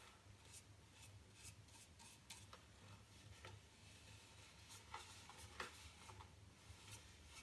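Faint, scattered rubbing and light ticks as a thin coat of resin is worked around a carbon-fibre pole section, over a low steady room hum.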